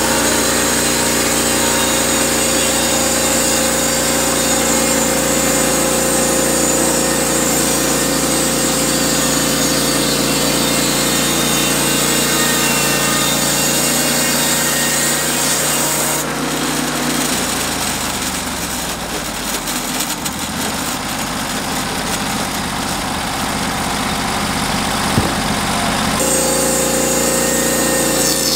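Engine of a Norwood HD36V2 portable bandsaw sawmill running steadily. A little past the middle the sound changes suddenly and the engine note sinks in pitch for several seconds, then the steady running returns near the end.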